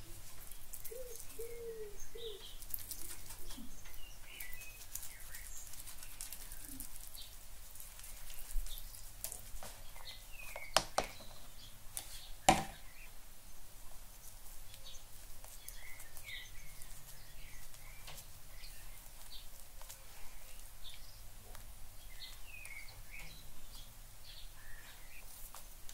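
Birds chirping now and then in the background. About halfway through, two sharp knocks of a metal spoon against a metal baking tray.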